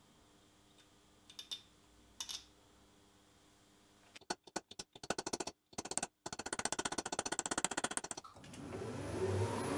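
A few light metal clicks, then a rapid mechanical chatter of about a dozen ticks a second, with two short breaks, from a tool working a small steel part clamped in a bench vise. Near the end a machine motor starts up, a rising hum that grows louder.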